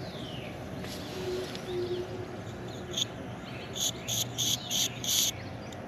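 Several short spurts of hissing gas from an air-conditioner service port's Schrader valve as its pin is pressed, coming in quick bursts through the second half. The valve core leaks at the pin, which the technician takes for a bad valve core.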